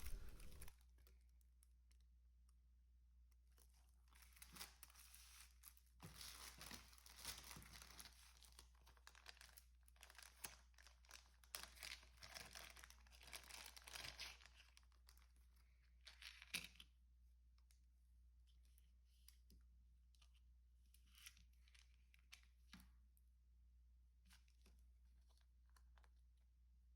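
Faint rustling and crinkling of plastic packaging being handled, with short crackling strokes in a stretch of several seconds, then only a few faint taps and clicks near the end.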